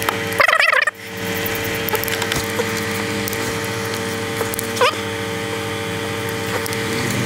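Small hand ratchet clicking as the camshaft bearing cap bolts on a diesel cylinder head are run down, over a steady workshop hum. Short squeaky bursts come about half a second in and again near five seconds.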